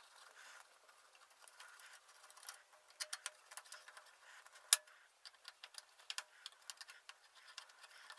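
Scattered small, sharp clicks and taps of a screwdriver working the four screws of a CPU heatsink loose, with one louder click a little before five seconds in.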